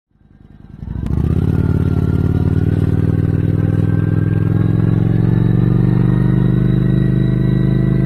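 Cruiser motorcycle engine running under way, fading in over the first second, then a steady, even note whose pitch rises slowly as the bike gathers speed.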